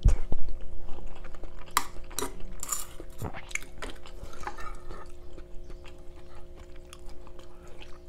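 A metal spoon scooping and stirring through coconut curry in a wooden bowl, with a low thump at the start and a few sharp clicks and scrapes of the spoon in the first half; a faint steady hum runs underneath.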